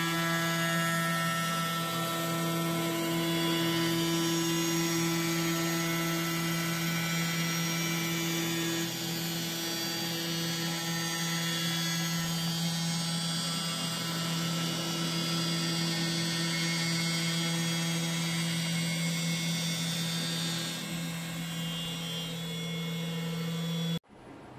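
CNC milling spindle turning a 10 mm two-flute endmill at 10,000 rpm on a finishing pass: a steady humming whine with a strong low tone and higher overtones, one of them fading about nine seconds in. It cuts off suddenly near the end.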